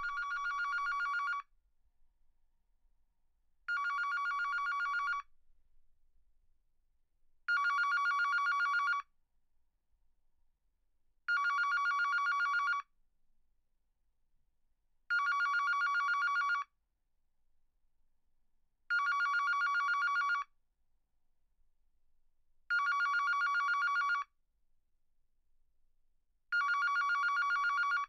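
Digital telephone ringing: a rapid warbling two-tone trill in bursts of about a second and a half, repeating roughly every four seconds with silence between rings.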